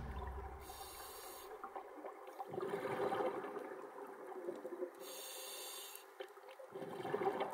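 Scuba diver breathing through a regulator underwater, with a hiss and bubbling of exhaled air that swell and fade slowly.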